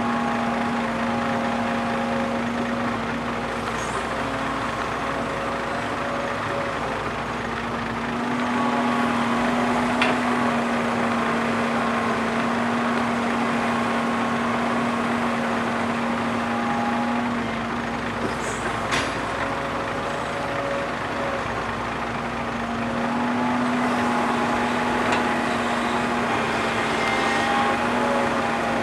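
Heavy diesel engine of a Kobelco hydraulic excavator running steadily while digging and loading. Its pitch and level rise twice under load and settle back. Two sharp knocks come, about ten and nineteen seconds in.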